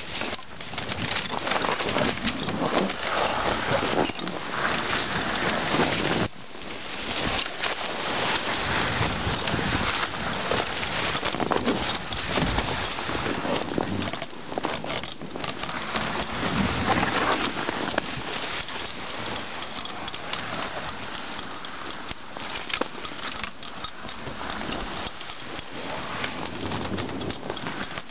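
Dog sled running over a snowy forest trail behind a team of Alaskan malamutes: the runners give a steady hiss and crunch over the snow, with dense crackles and knocks from the sled. The sound dips sharply about six seconds in, then carries on.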